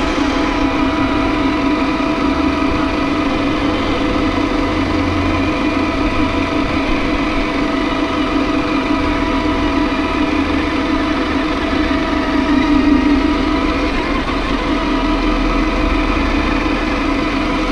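A motor running steadily, its hum holding one even pitch throughout.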